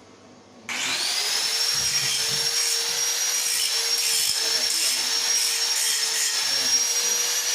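A high-speed electric power tool, most like an angle grinder, switches on under a second in and spins up quickly to a steady high whine, then runs on with a rough hiss.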